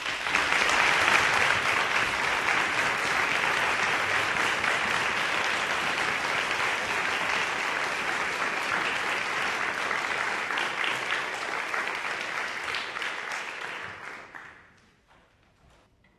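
Audience applauding steadily, then dying away about fourteen seconds in.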